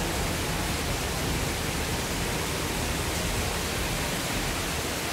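Steady rushing of water from an underground waterfall inside a cave, an even hiss with no breaks.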